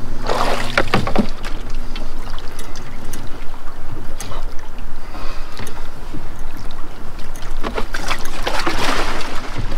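Water splashing and sloshing against the side of a Gheenoe as a man in the water hangs onto the boat and tries to climb back in, with knocks on the hull. The splashing comes in two bursts, about a second in and again near the end.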